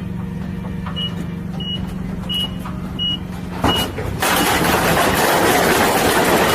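A heavy vehicle's engine running steadily while its reversing alarm gives five short high beeps. About four seconds in, the engine drops out and a loud, even rushing noise takes over.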